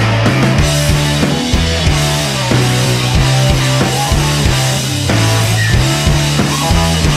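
Rock music with a drum kit keeping a steady beat, guitar, and a held bass line that changes note about once a second.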